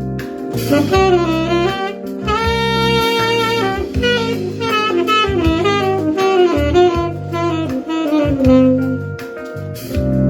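Saxophone playing quick chromatic runs and phrases in one key over a jazz accompaniment whose chords change underneath, with low bass notes and light drums.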